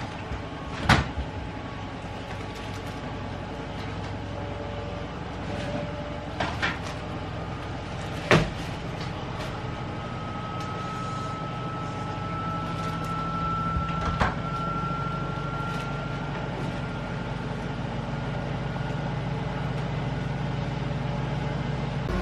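Washing machine running: a steady low hum that slowly grows louder, with a faint whine rising gradually in pitch through the middle. A few sharp knocks and clatters sit on top, the loudest about a second in and just past a third of the way through.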